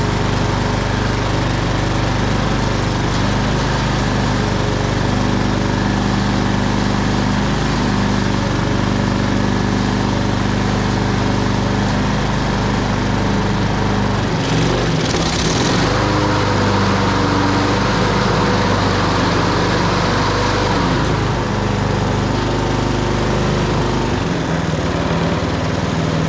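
Honda HRX217 lawn mower's GCV200 single-cylinder engine running steadily after starting, warming up its oil before an oil change. It seems to run pretty good, with its note shifting briefly about halfway through.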